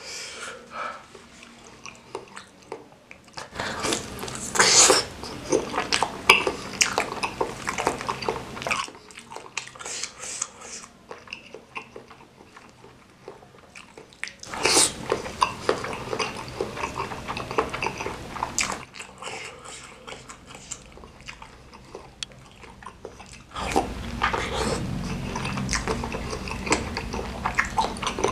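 Close-miked wet chewing and biting on chewy bakso aci (tapioca balls) in spicy broth. It comes in three bouts of dense smacking mouth sounds, starting about 3.5 s, 14.5 s and 23.5 s in, with quieter gaps between.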